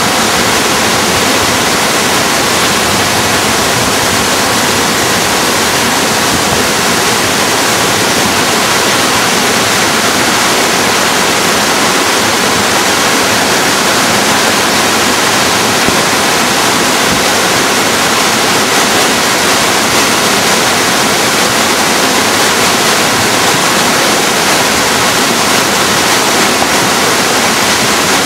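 The Nisqually River in flood: fast, high water rushing steadily and loudly, with no letup.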